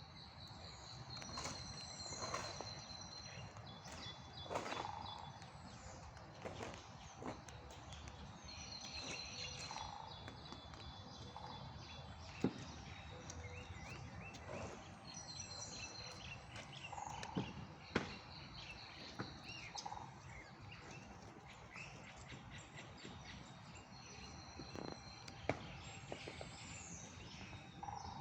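Songbirds singing outdoors: one bird repeats the same short high phrase with swooping notes every several seconds, over faint background noise. A few single sharp knocks stand out, a woodpecker tapping on wood.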